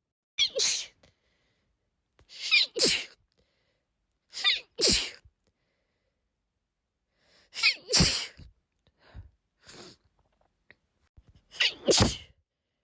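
A woman sneezing again and again in a sneezing fit: five sneezes about two to four seconds apart, each a brief build-up followed by a sharp, loud burst.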